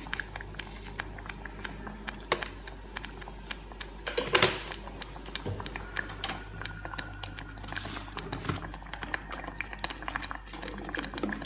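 Thick black bean sauce simmering in a metal pot, its bubbles popping in small irregular clicks, over a low steady hum. One louder knock comes about four and a half seconds in.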